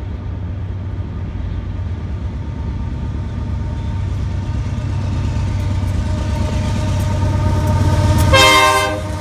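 Union Pacific freight train's diesel locomotives approaching, their low rumble growing steadily louder, with one short horn blast near the end.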